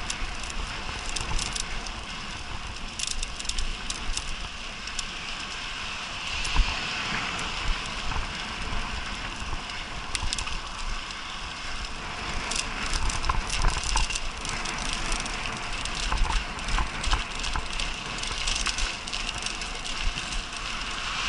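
Mountain bike being ridden fast over a rough dirt and grass track: a steady hiss of tyres on the ground, with frequent clicks and rattles from the bike over bumps and a low rumble underneath.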